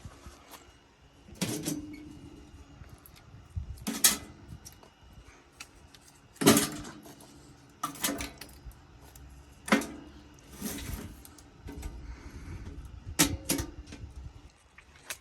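Irregular knocks, clinks and rustles of things being handled close by, one every second or two, a few with a short ringing tail.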